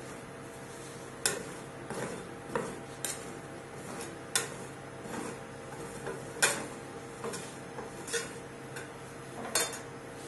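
Metal scrapers clicking and scraping on the frozen steel plate of a rolled-ice-cream pan as the chopped ice cream base is spread thin and flat. There are irregular sharp clicks, about one a second, over a steady hum.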